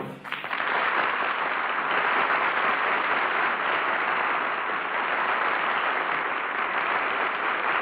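Studio audience applauding steadily, starting just as the final sung note ends, on an old radio broadcast recording with the high end cut off.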